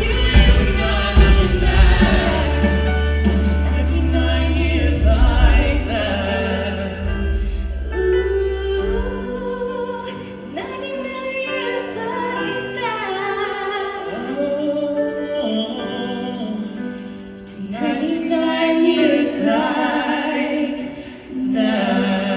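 Live pop duet: a male and a female singer with a band of piano, drums and guitars, amplified through the stage PA. The bass and drums drop out about nine seconds in, leaving quieter accompaniment under long held vocal notes, and the band swells back in near the end.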